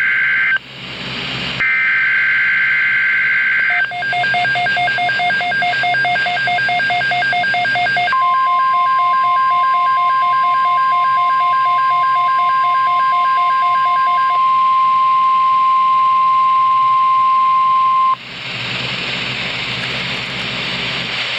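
NOAA Weather Radio emergency alert: the last two SAME digital header bursts, each a harsh buzzy screech about a second apart, then a rapid pulsing beep. About eight seconds in, the steady 1050 Hz weather alert tone joins the beeping and holds for about ten seconds. Radio hiss follows.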